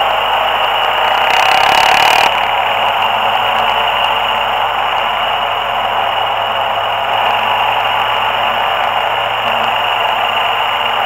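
Wind rushing over the microphone of a camera mounted on a moving ATV, a steady loud hiss with the quad's engine faint beneath it. A harder gust about a second in cuts off suddenly just after two seconds.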